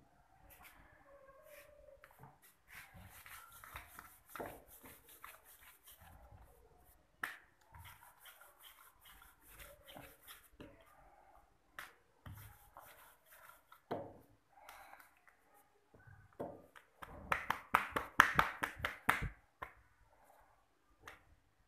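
Hands dusting a ball of dough in dry flour, then a rolling pin rolling it out on a smooth counter: scattered light taps and knocks, with a quick run of clattering taps near the end, the loudest part.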